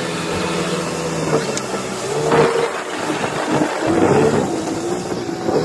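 Boat engine running under way, with water rushing past the hull.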